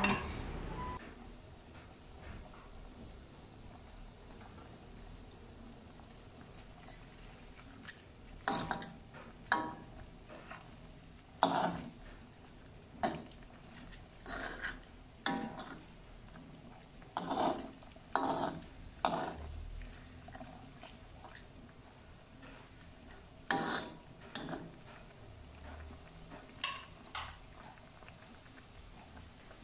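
A spatula stirring and pushing cabbage into chicken broth in a wok, giving irregular clinks and scrapes against the pan that begin about eight seconds in, over a low steady hiss from the simmering pot.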